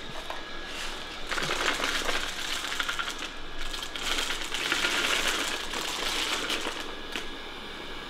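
NeaKasa NoMo N3 robot vacuum running with a steady hum while dry cat-food kibble rattles and clatters as it is spilled in front of it and swept and sucked up. There are two spells of dense rattling, a short one early and a longer, louder one mid-way.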